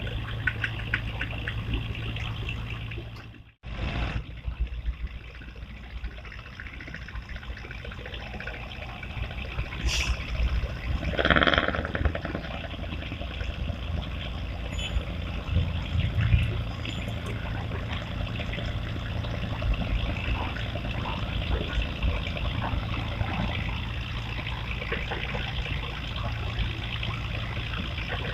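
Running water with a low steady hum underneath, cut off briefly about three and a half seconds in.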